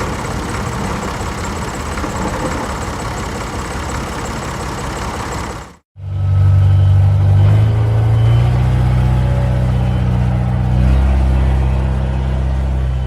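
Tractor engine running, in two recordings joined by a brief silent cut about six seconds in. The first is a rushing, noisy engine sound; the second is a deep, loud engine drone whose pitch steps up a few times as it revs.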